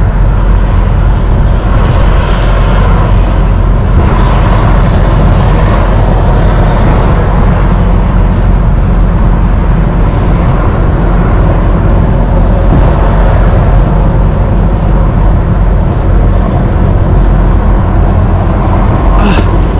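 Diesel truck engine idling: a loud, steady low rumble.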